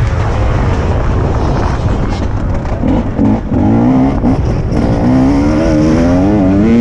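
TM 300 two-stroke motocross bike engine being ridden hard: revs drop off and break up briefly about two to three seconds in, then the engine pulls steadily at high revs with the pitch wavering.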